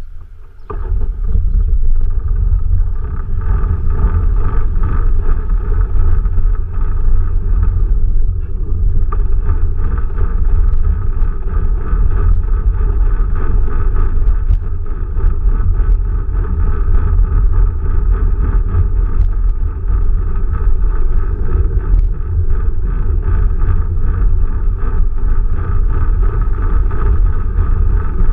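Quest velomobile rolling along an asphalt street: a steady low rumble of tyres and drivetrain carried through the shell, heard from a camera mounted on it. It gets louder about a second in as the velomobile pulls away and picks up speed.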